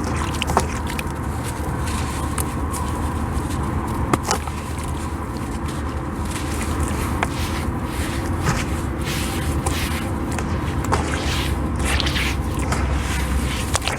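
Crispy sand chunks being smashed and crumbling in a little water: many irregular gritty crunches and crackles, over a steady low hum.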